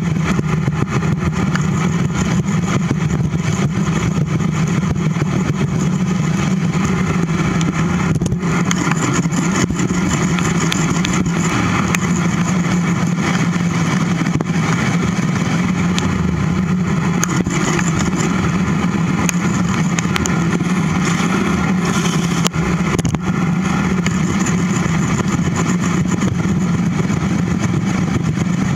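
Wind rushing over a bicycle-mounted camera and the rumble of riding on a paved trail, loud and steady, with a constant low drone underneath.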